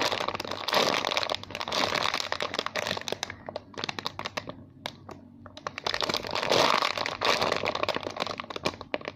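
Crinkling and rustling of packaging as a squishy toy is handled and squeezed, with many small crackles; it eases off for a few seconds in the middle, then picks up again.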